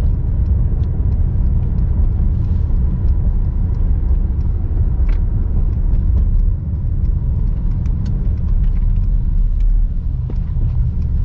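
Steady low rumble inside the cabin of a 2022 Mercedes-AMG SL55 driving in Comfort mode on a wet road, from its 4.0-litre twin-turbo V8 and the tyres, with scattered light ticks. The rumble eases slightly about six and a half seconds in.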